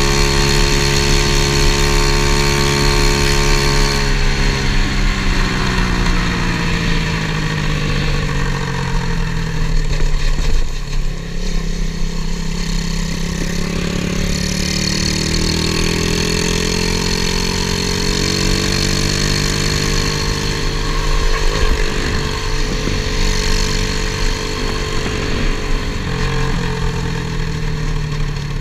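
Modified Honda ATC70 three-wheeler's 125cc single-cylinder four-stroke pit-bike engine running while riding. Its note holds steady at first, drops as the throttle eases about four seconds in, climbs again around the middle, then falls and rises once more near the end.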